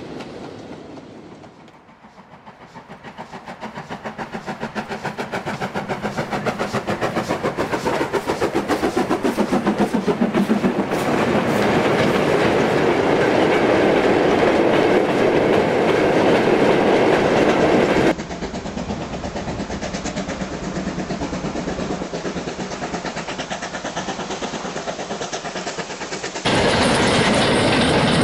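Model railway goods trains running over the track: rapid, regular clicking of wheels over rail joints with a steady rattle of the wagons. The sound fades away, builds again from about two seconds in as a train approaches and passes close, then changes abruptly twice as other trains take over.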